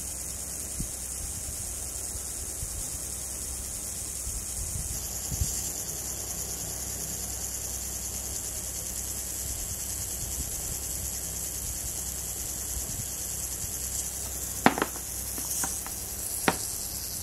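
Tiny 2.5 g continuous-rotation servo motor running with a steady high-pitched whine. A few sharp clicks come near the end.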